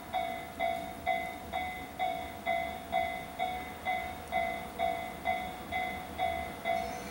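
Japanese electronic level crossing bell ringing, a repeating ding about twice a second, warning of the approaching EF64 freight train. A faint low rumble lies underneath.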